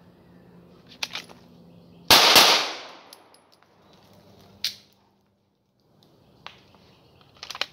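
Two pistol shots from an HK P30L fired in quick succession as a controlled pair, about two seconds in, the first double action and the second single action. Several lighter clicks and knocks come before and after.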